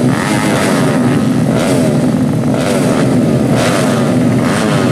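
Several 125cc four-stroke underbone race motorcycles revving on the starting grid, their engines rising and falling in pitch over one another.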